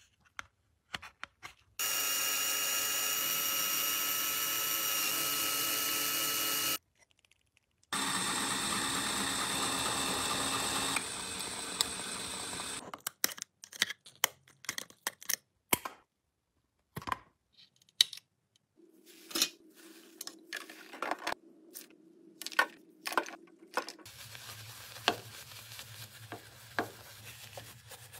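A small handheld power tool running steadily in two bursts of about five seconds each. Scattered clicks and taps of hard plastic and metal parts being handled follow, and near the end a stiff bristle brush scrubs.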